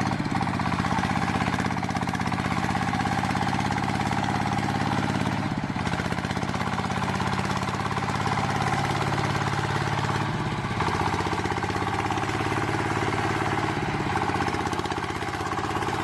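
An engine running steadily at low speed, its tone shifting slightly about five and ten seconds in.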